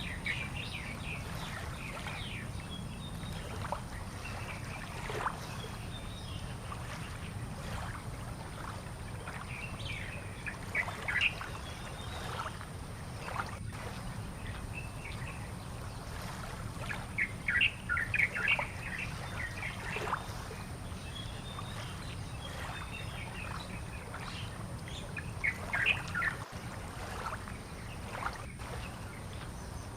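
Small birds chirping in short bunches of quick notes, loudest about two-thirds of the way through, over a steady low background rumble.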